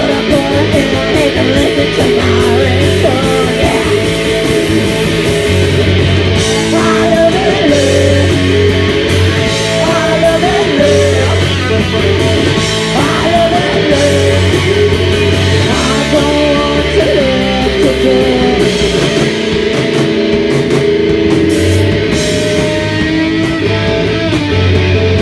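Rock band playing live: electric guitar, bass and drums with a singing voice, loud and continuous.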